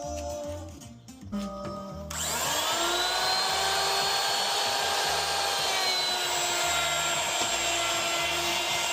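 Background music with a steady beat; about two seconds in, an electric power tool's motor spins up with a rising whine and then runs steadily at high speed over the music.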